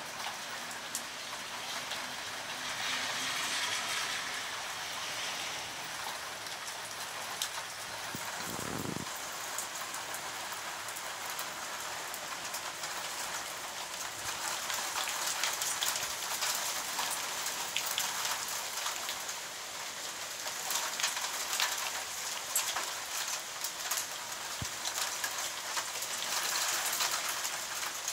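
Heavy rain mixed with hail falling steadily, a dense hiss full of fine ticks from drops and hailstones striking surfaces.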